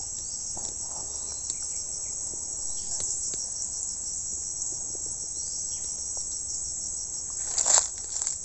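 Steady high-pitched chorus of insects such as crickets, continuous and unchanging, with a brief rustle near the end.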